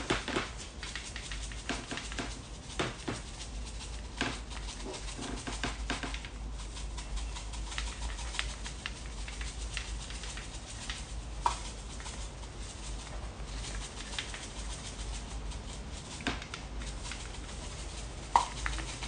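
Dry seasoning rub sprinkled by hand, its grains pattering onto raw pork and a wooden cutting board in scattered light taps, with a couple of sharper ticks near the middle and the end.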